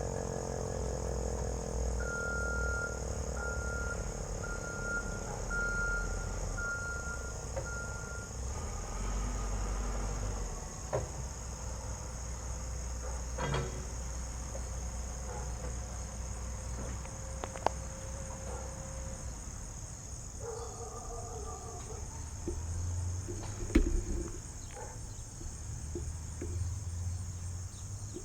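The FS Equinox siren's tone falling away in the first second as it winds down, then insects calling in a steady high drone. Six short high beeps sound between about 2 and 8 seconds in, and a few sharp knocks come later, the loudest about 24 seconds in.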